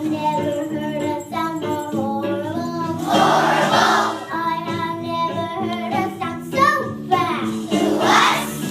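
Children's song: singing over instrumental backing, with two short noisy swells about three seconds in and near the end.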